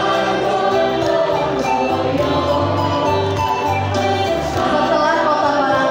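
A mixed choir of young and adult voices singing a song, accompanied by an electronic keyboard holding low bass notes.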